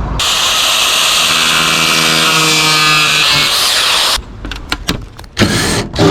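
A handheld power tool runs steadily for about four seconds and then stops abruptly, followed by a few short knocks and clicks of parts being handled.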